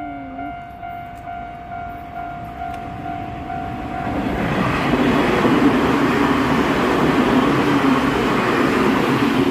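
Japanese level-crossing alarm ringing with a steady electronic ding at about two strokes a second. About four seconds in, the Nankai Southern Premium limited express passes over the crossing, and its rushing wheel and body noise builds to the loudest part and drowns out the bell.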